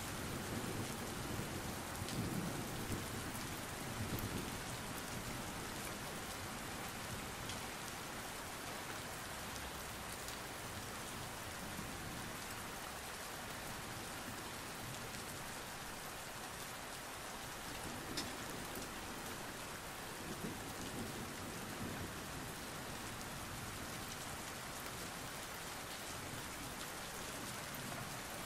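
Steady rain falling on a hard wet surface, with a low rumble swelling in the first few seconds and again about twenty seconds in.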